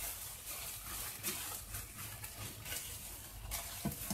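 Spatula stirring prawns and vegetables in a thick sauce in a nonstick wok: repeated short scraping, wet strokes over a faint hiss from the hot pan.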